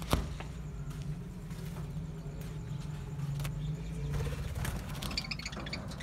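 A steady low hum with scattered clicks, the loudest a sharp click just at the start. Budgerigars chirp faintly near the end.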